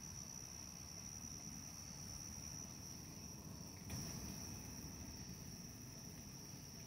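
Faint, steady high-pitched trilling of crickets, with a soft click about four seconds in.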